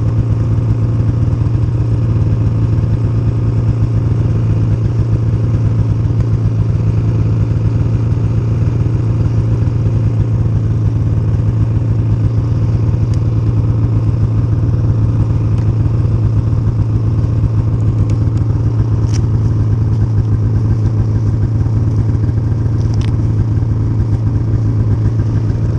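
Snowmobile engine running at a steady speed, its pitch and level holding even throughout, with a couple of faint ticks late on.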